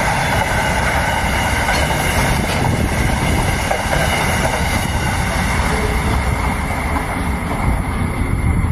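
Loaded grain train's hopper wagons rolling past, a steady rumbling rush of wheels on rail with wind buffeting the microphone. The higher rushing thins out near the end as the last wagon goes by.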